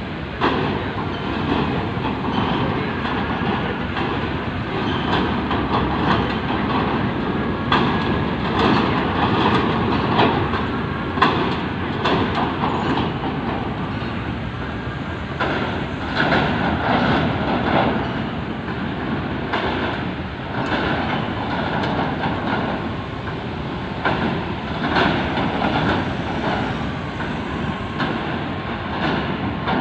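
Cars and motorcycles driving off a ferry's steel vehicle ramp onto the dock. Engines and tyres make a steady noise, with repeated clanks as wheels roll over the ramp plates.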